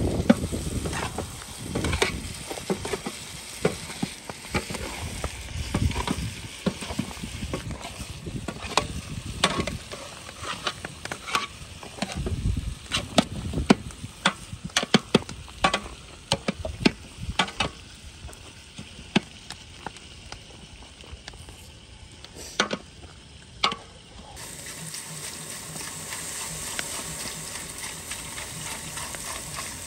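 Metal spatula stirring and scraping the bottom of a large steel pot of frying meat, split peas and tomato paste over a wood fire, with a sizzling hiss under the repeated scrapes and clicks. About 24 seconds in the scraping stops, and a steady hiss remains from the steaming stew.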